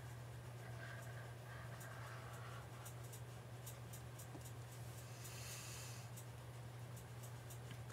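Faint scratching of a stylus dragged across a tablet screen over a steady electrical hum, with a light regular ticking of about four clicks a second. A brief soft hiss comes about five seconds in.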